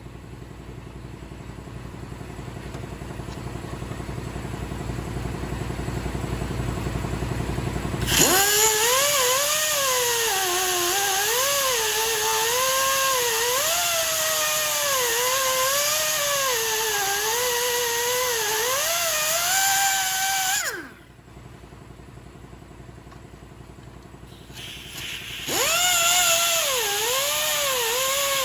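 A high-speed grinder working on the car's steel frame. A low hum builds first, then the tool bites in loudly with a hissing top and a pitch that wavers as it is pressed against the metal. It winds down with a quick falling pitch, and a few seconds later it starts up again.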